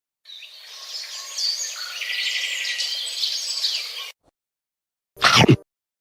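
Birds chirping in a dense chatter of many overlapping calls that cuts off suddenly about four seconds in. About a second later comes a short, loud burst.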